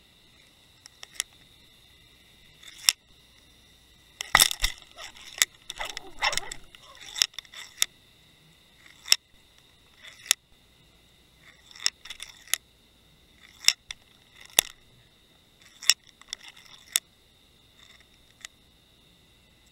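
Sharp, irregular clicks and knocks, picked up underwater through a camera housing: roughly one a second, with a busy flurry of them about four to seven seconds in. A faint, steady high electronic whine runs underneath.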